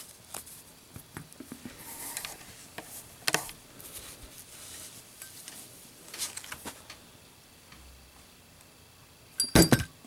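Light handling clicks of a lit copper Zippo lighter, then about nine and a half seconds in the lighter is dropped and lands with a loud, short metallic clatter and ring. It is a lit drop test that the lighter fails.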